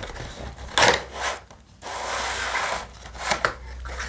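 Cardboard packaging being handled, rubbing and sliding. A few short scrapes, and about a second of steady sliding rub near the middle as the oversized card in its cardboard sleeve is drawn out of the box.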